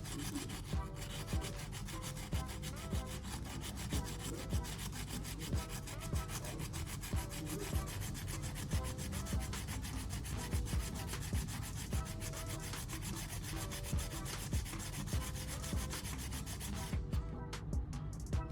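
Sandpaper rubbed by hand over a battery pack's circuit board, a steady scratchy rasp in repeated strokes about twice a second, cleaning the contacts of corrosion.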